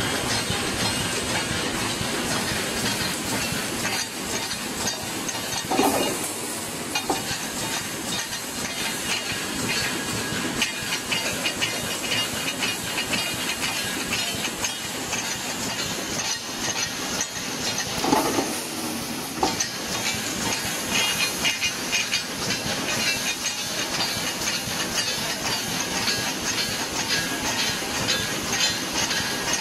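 Poultry cage wire mesh welding machine running steadily: a dense, rapid mechanical clatter over constant noise, with louder knocks about six and eighteen seconds in.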